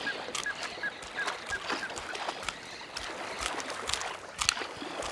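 A yacare caiman biting and working a fish in its jaws: irregular wet snaps and crunches, the loudest about four and a half seconds in. A series of short high chirps, about three a second, sounds through the first two seconds.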